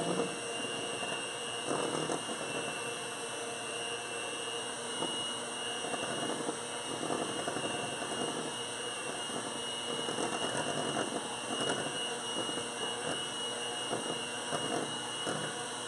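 Electric hand mixer running steadily with its beaters in a stainless steel bowl, mixing flour into cake batter, with a few faint knocks now and then.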